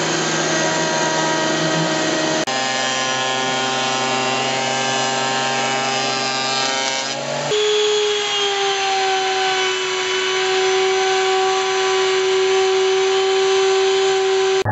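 An electric power tool runs and cuts hinoki wood, with a steady whine. Its pitch changes abruptly twice, about two and a half seconds in and again about halfway through.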